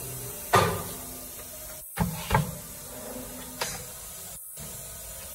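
Short knocks and handling noise from a black plastic spin-dryer tub while a rubber strip is worked onto its rim by hand: about four sharp knocks, the loudest about half a second in and a pair near two seconds, over a steady hiss.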